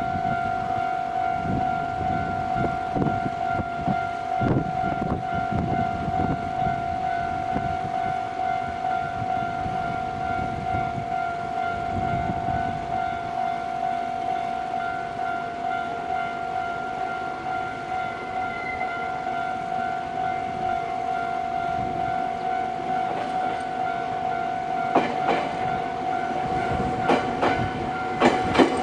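Japanese railway level-crossing warning bell ringing steadily throughout. A train rumbles over the crossing in the first several seconds, and from about 25 seconds in a train's wheels clack over the rail joints.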